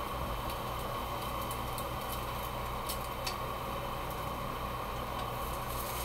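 Trumpet mushroom steaks sizzling in oil in a cast-iron skillet, a steady frying hiss, with a few light clicks of metal tongs against the pan a few seconds in as the pieces are turned.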